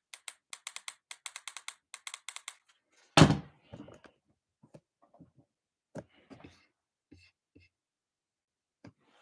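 A fast run of sharp clicks, about six a second, for about two and a half seconds. Then one loud thump about three seconds in, followed by scattered light knocks of things being handled.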